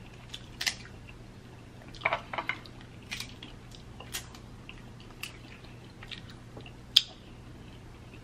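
Eating sounds of king crab meat being pulled from the shell and chewed: a scattered run of wet mouth smacks and sharp clicks, the loudest one about seven seconds in.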